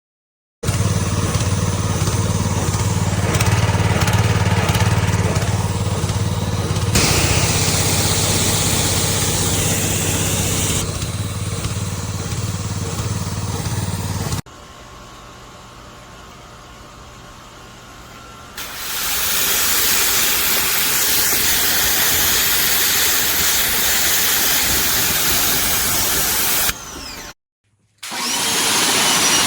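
Pressure washer running and spraying, in cut-together takes. First comes a steady low motor hum under the spray hiss, which cuts off suddenly about halfway. After a quieter few seconds, a loud, even spray hiss follows.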